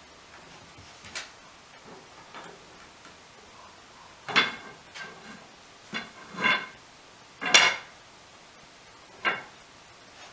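Wooden banister spindles knocking as a Scottish terrier pushes and pulls at them to work one loose: a series of about seven sharp, irregular clacks, each with a short ring.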